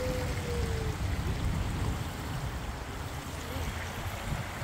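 A small waterfall running into a rocky garden pond, a steady rush of water.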